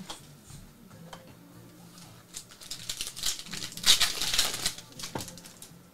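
Foil trading-card pack wrapper crinkling and tearing as it is ripped open by hand, starting a couple of seconds in and loudest about two-thirds of the way through.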